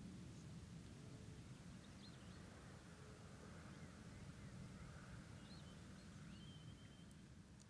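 Faint open-air ambience with a low steady rumble, broken by a few short, high bird chirps and one brief held whistle; the sound begins to fade out near the end.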